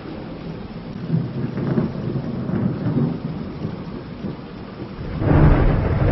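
Thunder rumbling over steady rain, with a louder, deeper peal of thunder breaking about five seconds in.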